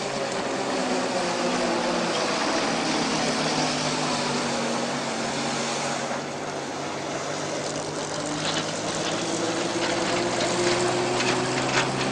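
Propeller aircraft engine running with a steady drone and a few held tones. It dips slightly about halfway through and builds again toward the end.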